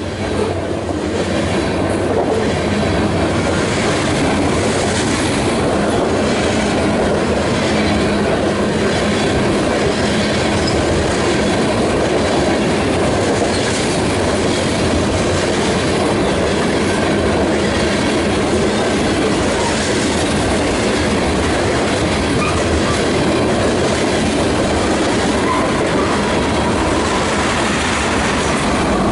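Freight train cars (covered hoppers and tank cars) rolling past close by: a steady, loud noise of steel wheels on the rails, with regular clicks as the wheels pass over rail joints.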